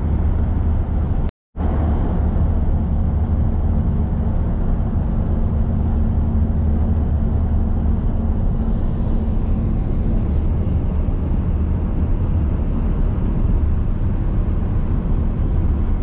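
Steady road noise of a truck driving at highway speed, heard from inside the cab: a constant low drone of engine and tyres. The sound cuts out completely for a moment about a second and a half in.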